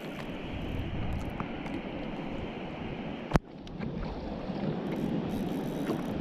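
Wind on the microphone and small waves lapping against a kayak, a steady hiss, with one sharp click about three and a half seconds in.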